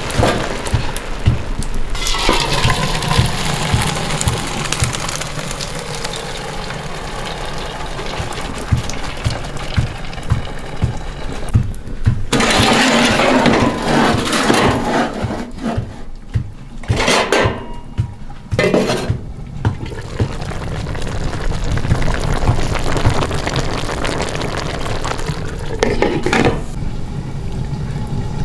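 Boiled rice and its hot water tipped from a large aluminium pot into a metal colander, water splashing and draining, with clatter of aluminium pots. Partway through, a lidded wok of food frying over the open fire of a wood-burning stove.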